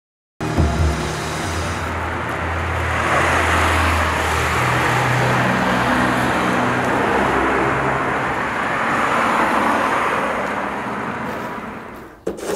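Road traffic: passing cars whose engine and tyre noise swells twice and fades away near the end.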